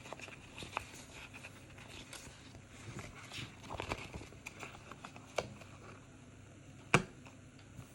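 Stickers and paper being handled: soft rustles and scattered small clicks, with one sharper click about seven seconds in.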